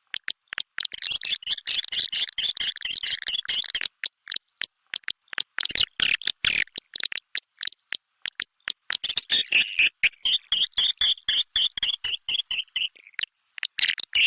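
Swiftlet (walet) calls: a run of rapid dry clicks, broken by three stretches of loud, buzzy, chittering twitters. It is a lure recording of the kind played in swiftlet houses during the breeding season.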